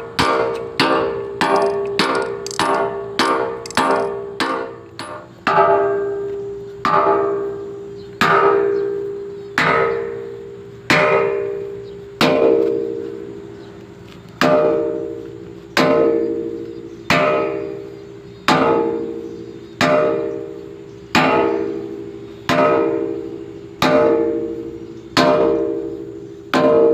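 A hammer strikes steel over and over, driving in a pin or bushing while an excavator bucket is fitted. Each blow rings out like a bell. The blows come about twice a second at first, then slow to about one every second and a half.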